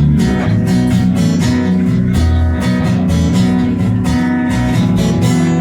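Acoustic guitar strummed in a steady rhythm over a bass guitar, in an instrumental stretch of a live song with no vocals.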